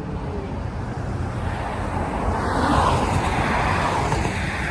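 A vehicle passing by, its noise swelling to a peak about three seconds in and then fading, over a steady low rumble.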